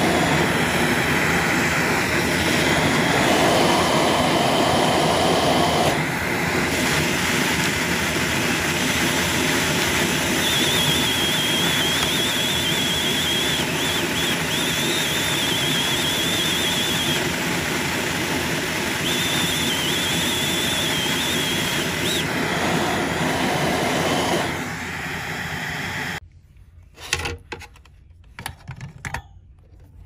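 Vacuum cleaner running with a loud, steady rush as it sucks dust out of a desktop PC case. A thin high whistle comes and goes in the middle. The vacuum cuts off suddenly about 26 seconds in, followed by a few light clicks and taps as the CPU cooler is handled.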